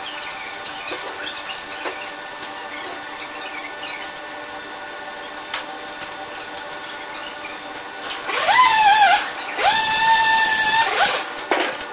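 Scragger-RS2 scragg mill with twin saw spindles running with a steady hum. About eight seconds in, a loud whine rises and wavers in pitch as the saws cut into a log. A second, steadier whine follows about a second later and holds for just over a second.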